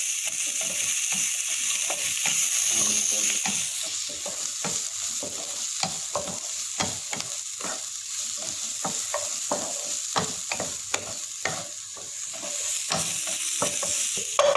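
Onion, ginger, garlic and dried chillies sizzling in hot oil in a non-stick wok while a wooden spatula stirs and scrapes them, with frequent short knocks of the spatula against the pan.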